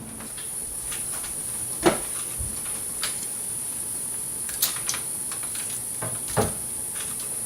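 A steady high-pitched hiss, with a few light knocks and clicks over it: the loudest about two seconds in, others near three, five and six and a half seconds in.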